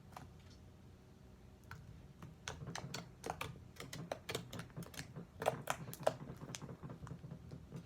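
Slime being handled, giving off a quick irregular run of small clicks and pops that starts about two seconds in and is busiest near the middle.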